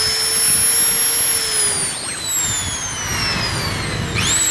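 Total 1010 W hammer drill running free at high speed, with a rush of air from its motor fan. The whine glides steadily down in pitch as the speed drops, then rises sharply again near the end as the drill speeds back up.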